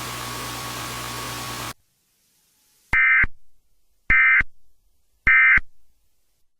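Emergency Alert System end-of-message (EOM) signal: three short bursts of warbling SAME digital data tones, about a second apart. Before them, a hiss with a faint steady tone cuts off abruptly.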